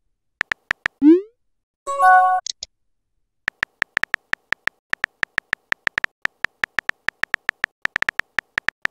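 Texting-app sound effects: four quick keyboard typing clicks, a short rising pop about a second in as a message is sent, then a brief electronic chime. From about three and a half seconds in comes a steady run of typing clicks, about six a second.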